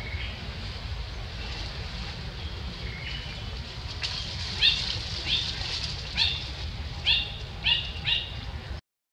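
A bird calling repeatedly: about six short, slightly falling calls roughly two-thirds of a second apart in the second half, after a few faint chirps. Under it runs a steady low rumble of wind on the microphone, and the sound cuts out near the end.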